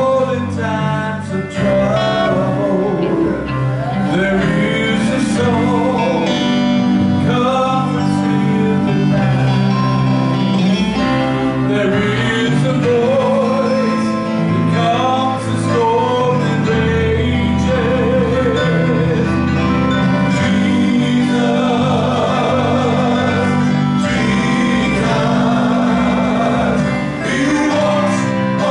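A live gospel band playing: male voices singing over electric guitar, bass guitar, drums and keyboard.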